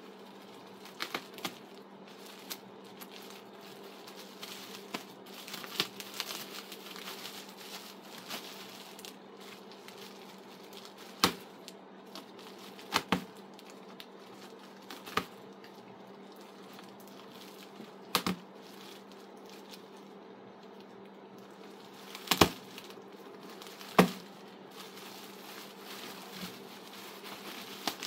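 Bubble wrap being cut open with a knife and pulled off: plastic crinkling with a dozen or so scattered sharp pops, over a steady low hum.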